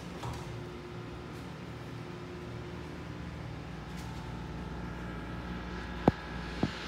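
ThyssenDover hydraulic elevator's pump motor running with a steady low hum while the car is sent up a floor. Two sharp clicks come near the end.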